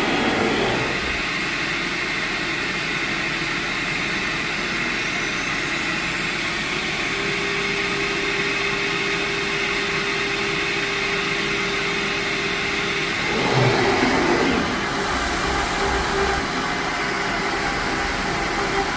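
CNC router machinery running: a steady mechanical noise, with a steady motor tone for several seconds in the middle, then a brief louder change about 13 to 14 seconds in.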